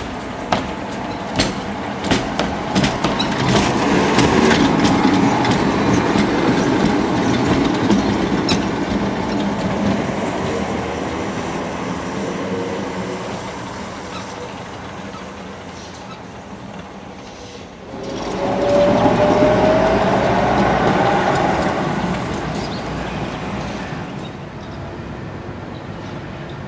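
Soviet-built trams running on street track. A quick series of clicks from the wheels over the rail joints comes first, then the rumble of a passing car swells and slowly fades. After a sudden change, another tram runs with a rising whine, which then fades.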